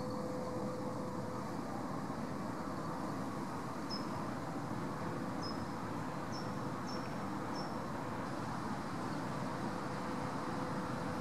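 Steady distant road-traffic rumble with a faint steady hum in it; from about four seconds in, five short high chirps, each dropping in pitch, come over the next four seconds.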